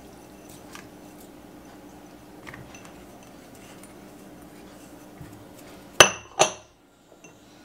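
Two sharp clinks about six seconds in, half a second apart: a small ceramic ramekin being set down onto another. Before them there are only faint small handling sounds.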